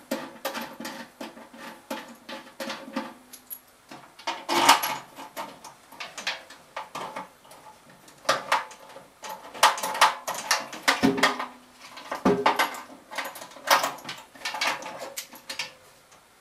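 Irregular metal clinks, taps and rattles as mounting bolts and the motor bracket are fitted by hand into a sheet-metal furnace blower housing. A few knocks ring briefly, about 3 seconds in and again near 12 seconds.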